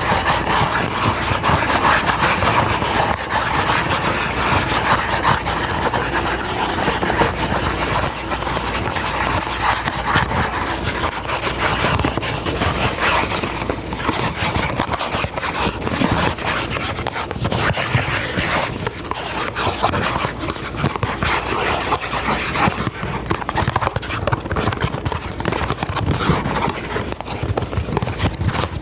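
Close-miked ASMR scratching and rubbing on or right at the microphone, a dense continuous crackle of fine rapid clicks.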